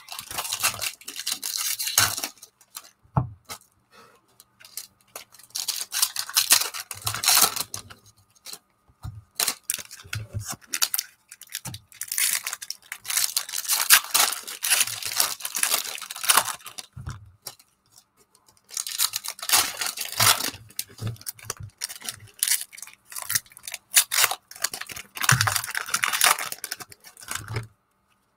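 Foil wrappers of baseball trading-card packs being torn open and crinkled by hand, in repeated bursts of rustling with short pauses between.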